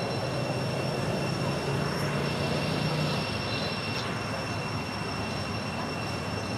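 Steady high-pitched insect drone, such as cicadas in the forest, held at a constant pitch over a continuous background hiss.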